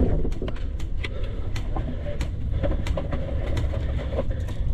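Airsoft guns firing scattered single shots, sharp clicks at irregular intervals, over a steady low rumble.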